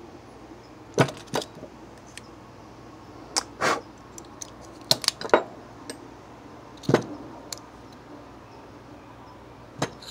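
Scattered light metallic clicks and clinks as a digital caliper is handled and adjusted against a steel rod, some in quick pairs, with quiet gaps between.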